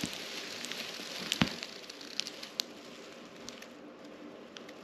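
Faint crackling rustle of a cat toy's dry raffia-straw fringe as the toy is wiggled, with a few scattered small ticks, the sharpest about one and a half seconds in.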